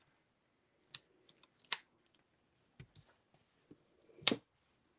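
Scattered light clicks and taps of paper and card stock being handled on a tabletop while foam adhesive dimensionals are stuck onto a die-cut paper tree. The loudest tap comes about four seconds in.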